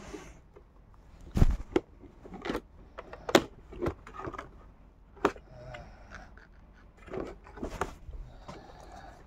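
Handling noise from a boxed Funko Pop figure: irregular knocks, taps and scrapes of the cardboard box and its plastic window being picked up and turned over. About eight sharp knocks stand out, the loudest about a second and a half in and again about three and a half seconds in.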